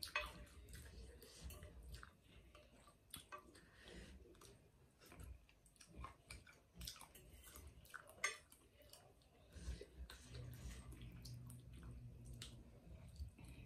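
Quiet chewing of rice noodles, with scattered light clicks of a metal fork and a plastic spoon against a soup bowl.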